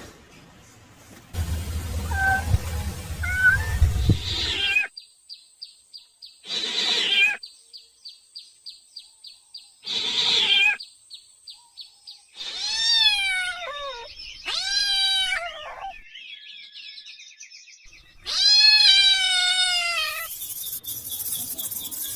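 Kitten meowing: two falling meows in the middle and one longer meow later, over a steady, rhythmic insect chirping.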